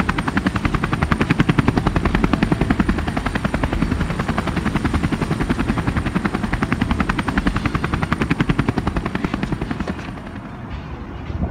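Helicopter rotor chopping in a fast, even beat, dying away near the end.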